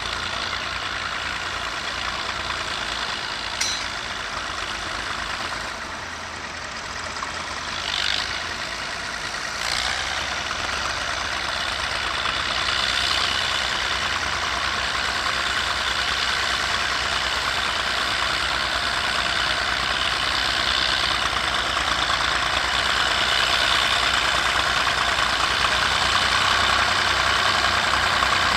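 Massey Ferguson 135 tractor engine running steadily while pulling a plough, growing gradually louder from about ten seconds in, with a few brief clicks early on.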